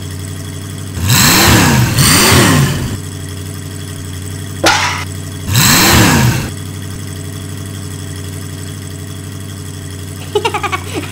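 Steady engine hum of a cartoon crawler crane. Loud whooshes rise and fall in pitch over it: two in quick succession about a second in, a third about five and a half seconds in, with a sharp knock shortly before the third.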